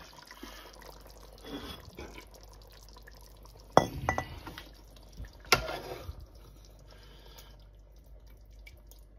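Kitchenware clinking while dishing up curry: a ceramic plate and metal ladle knocking against a steel cooking pot, with two sharp clinks about two seconds apart and softer clatter around them.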